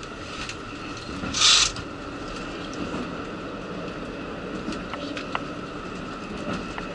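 Inside a moving KiHa 85 diesel railcar: a steady running rumble with a faint steady whine and a few light clicks and rattles. A brief loud rush of noise comes about a second and a half in.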